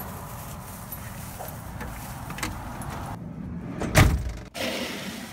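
Camper van door shut with a loud thud about four seconds in, after a few light clicks and rattles.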